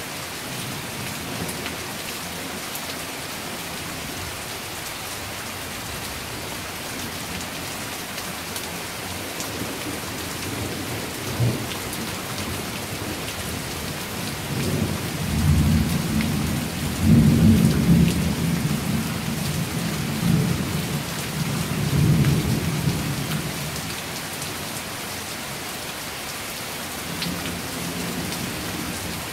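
Steady rain falling through a thunderstorm. A short low clap of thunder comes a little before the middle, then a long rolling rumble of thunder swells and fades over about eight seconds in the second half.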